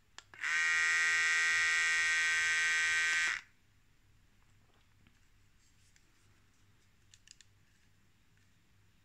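Xiaomi Enchen electric hair clipper running with a steady, high buzz for about three seconds. It gives two short blips first, then starts and stops abruptly. A few faint clicks come near the end.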